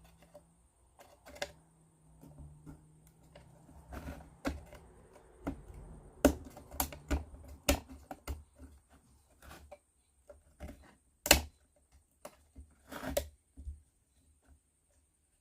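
Irregular light clicks and taps of thin plywood kit parts being handled and fitted together, with the sharpest click about eleven seconds in.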